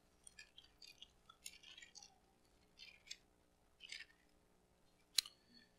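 Faint rustling of thin Bible pages being turned, in short scattered bursts, with one sharp click about five seconds in.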